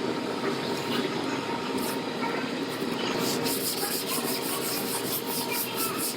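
Sandpaper rasping over cured body filler on a pickup bedside: a steady scraping that settles into quick, even back-and-forth strokes, several a second, in the second half.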